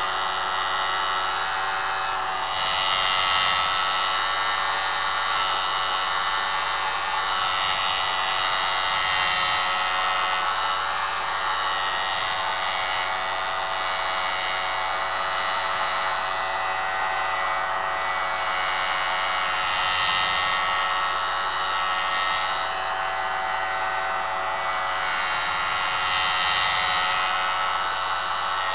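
Jool Tool sharpening system's electric motor running steadily at reduced speed, with the hiss of a tool being ground against its spinning abrasive swelling and easing several times.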